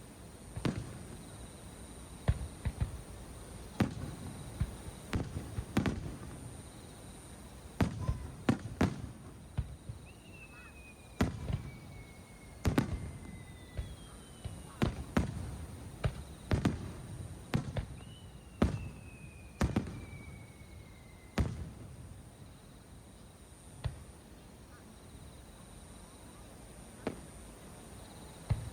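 Aerial fireworks bursting in irregular bangs, some in quick clusters, with two long whistles falling in pitch in the middle. The bangs thin out to a single one in the last third.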